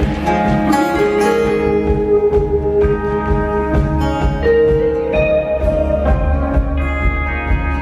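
Live rock band playing an instrumental passage: electric guitars carry a melody of held notes over drums, with a cymbal crash about a second in.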